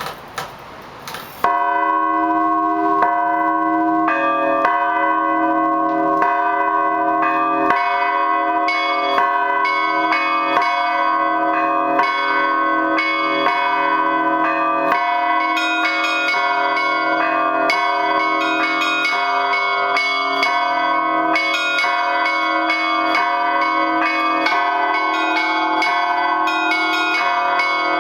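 Russian Orthodox church bell ringing on eight bells, one large, four medium and three small, cast at the Lavrov, Olovyanishnikov and Shuvalov foundries, struck in a rhythm in three. The peal begins about a second and a half in, after a few short knocks, and then rings on continuously.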